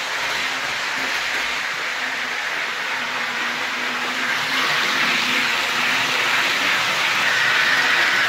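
Hornby Class 373 Eurostar OO gauge model train running at full speed on the track: a steady whirring of its motor and wheels, growing a little louder in the second half.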